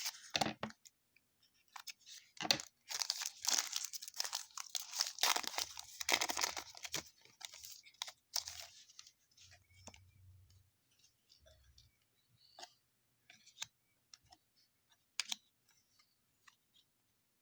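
Wrapper of a baseball card pack being torn open and crinkled in a run of rustling bursts over the first several seconds. After that come faint, scattered clicks and rustles of the cards being handled.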